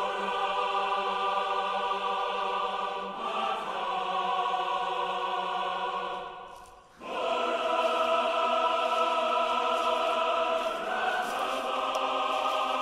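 Choral background music: voices singing long held chords. The chord changes about three seconds in, fades out just before seven seconds, then comes back and shifts again near eleven seconds.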